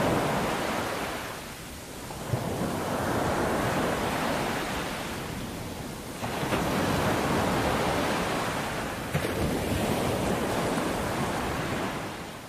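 Ocean surf: waves breaking and washing up the beach in slow swells that rise and ebb, with a fresh wave coming in suddenly about six seconds in. The sound fades out near the end.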